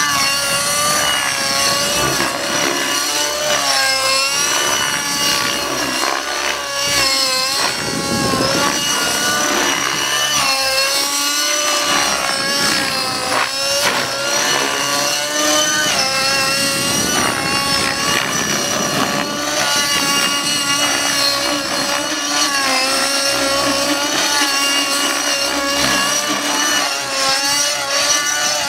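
Two-stroke glow engine (Align 50 Hyper) and rotor blades of a T-Rex 600N nitro RC helicopter running at high head speed in 3D aerobatic flight. The high engine whine keeps bending up and down in pitch as the load changes through the manoeuvres.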